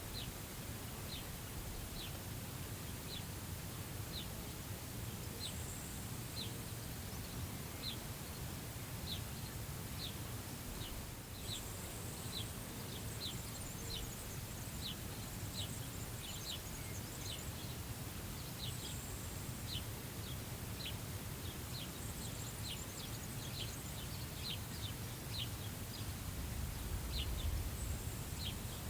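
A bird repeating a short, high, falling chirp about once or twice a second, with brief patches of higher, thinner notes now and then, over a steady low wind rumble across the prairie grass that swells near the end.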